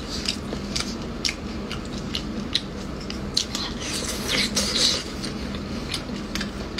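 Close-up mouth sounds of eating: wet chewing with small clicking smacks scattered throughout, busiest about four to five seconds in, over a faint steady hum.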